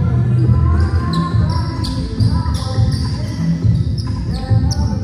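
Basketball bouncing on a hardwood gym floor, with short high squeaks from sneakers on the court, all echoing in the large hall.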